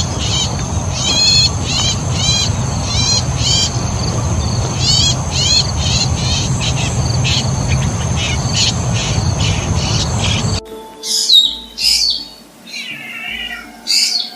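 A small bird chirping over and over, short falling chirps about one or two a second, over a heavy low rumble and a steady high insect-like tone. About ten seconds in it cuts to louder, more varied animal calls.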